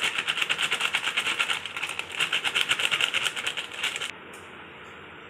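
Plastic flour packet crinkling in rapid, even pulses as it is shaken to tip maida into a steel bowl, stopping about four seconds in.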